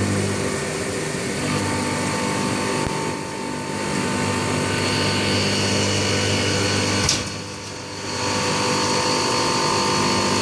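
Haas CNC milling machine cutting aluminum: a steady machine run with a spindle whine and a low hum. It eases off briefly about three seconds in, and a sharp click about seven seconds in is followed by a quieter second before it picks up again.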